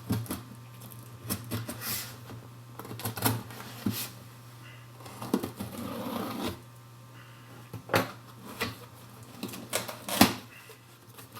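A mailed package being handled and opened by hand: irregular clicks and knocks of the packaging, with a stretch of rustling about five seconds in.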